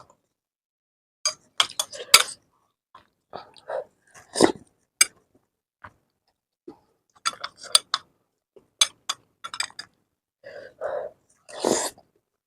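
Close-up mouth sounds of a person eating noodles: a string of short, sharp slurps and smacks in irregular clusters, with a few brief throaty sounds between them.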